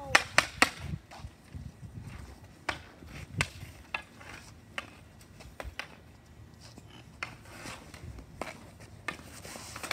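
Hockey stick blade tapping and knocking a small street hockey ball on an asphalt driveway while stickhandling. There is a quick run of loud, sharp clacks in the first second, then single clacks scattered every second or so.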